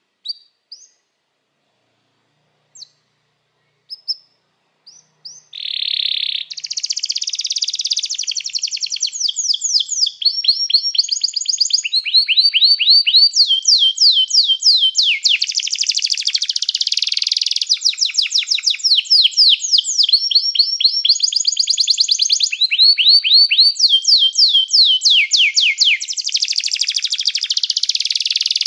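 Domestic canary singing: a few short scattered chirps, then from about five seconds in a continuous song of rapid trills, each a quick run of repeated notes that switches to a new trill every second or two.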